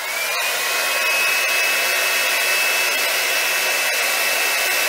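Babyliss Big Hair rotating hot-air brush switched on: its motor spins up with a rising whine in the first moment, then runs steadily, blowing air with a high, even whine.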